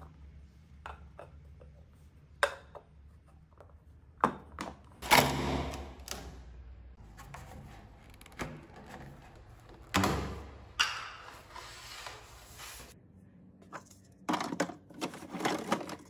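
Hard PVC pipe fittings knocking and clicking against each other, with several longer scraping rubs as a pipe is pushed into a PVC cap.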